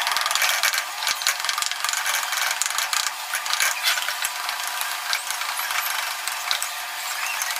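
Beaten eggs crackling and sizzling in hot oil in a nonstick karahi, stirred with a spatula as they set into scrambled curds: a steady, fast crackle.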